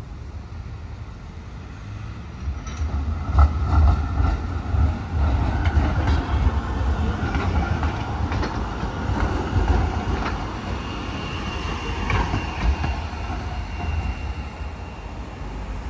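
Heavy low rumble of a passing vehicle, with rattling and clicking. It builds about two seconds in and eases off near the end, and a thin high squeal joins in the second half.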